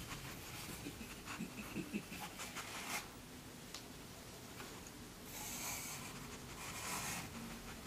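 A dog sniffing and panting faintly, with a few light clicks and rustles in the first three seconds and two longer rushes of breath in the second half.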